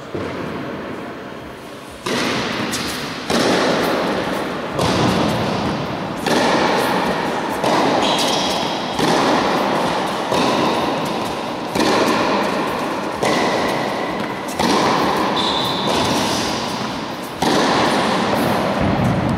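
Tennis balls struck back and forth with rackets in a steady rally, about one hit every second and a half, each hit echoing through a large indoor hall.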